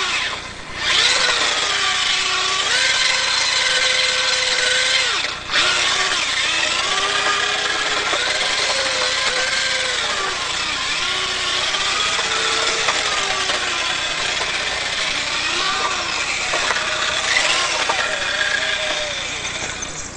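Small 180-size brushed electric motor and gears of a 1:16 RC drift car whining. The pitch rises and falls with the throttle as the car circles, and it cuts out briefly twice, about half a second in and about five seconds in.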